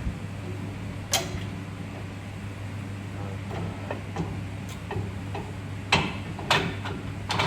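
A few sharp metallic clicks and clinks of tools and parts being handled, spread out over several seconds, over a steady low hum.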